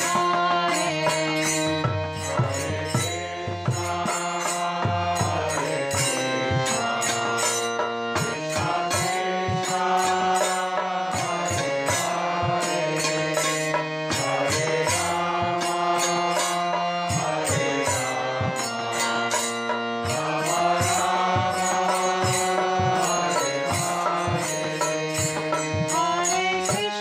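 Indian devotional background music in a chanted-mantra style. It has a steady low drone under repeating melodic phrases and a regular hand-drum beat.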